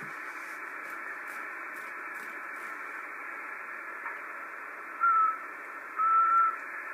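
Icom IC-7000 transceiver receiving shortwave in sideband mode: steady, narrow band hiss through its receive filter, broken by two short steady beeps about five and six seconds in, the second one longer.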